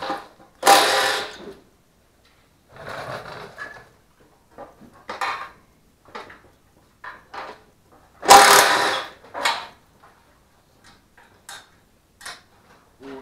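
Metal hand tools working on the fuel tank bolts of a Duromax 440cc engine: scattered clicks, clinks and knocks, with two louder, harsher bursts about a second long, one just after the start and one about eight seconds in.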